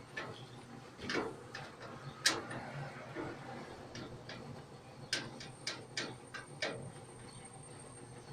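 Scattered light clicks and knocks, clustered about five to seven seconds in, over a washing machine's low steady running hum.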